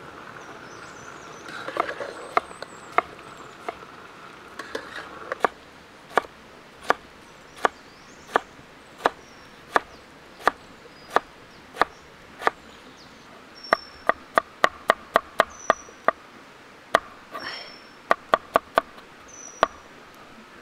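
Knife chopping tomatoes and garlic on a wooden cutting board: sharp knocks of the blade striking the board, slow and even at first, about one every 0.7 seconds, then in quicker runs of about four a second in the second half.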